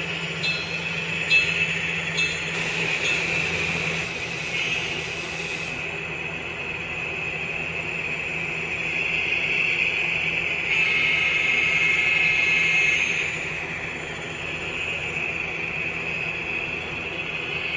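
N scale model train running on track, pulling a Tomix track cleaning car whose decoder-controlled vacuum motor gives a steady high-pitched whine over a low hum. There are a few light clicks in the first couple of seconds, and the whine swells louder for a couple of seconds past the middle.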